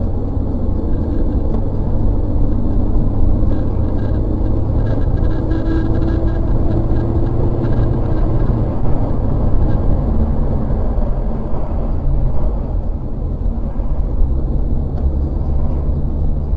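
Steady low rumble of a car on the move, engine and road noise, with no distinct impact standing out.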